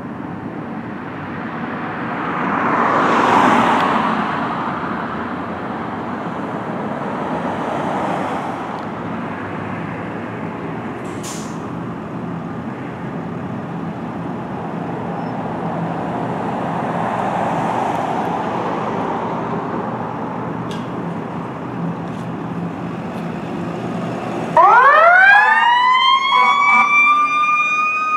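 Steady street noise with passing traffic, one vehicle going by loudly about three seconds in. Near the end a fire department paramedic squad's siren starts up, its wail rising steeply in pitch and then holding high and loud.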